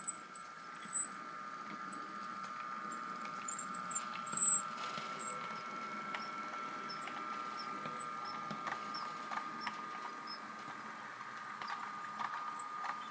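An OO gauge model Class 150 DMU running out of the station, with a steady high motor whine. Sharp high squeaks sound in the first couple of seconds, and scattered sharp clicks come in the second half.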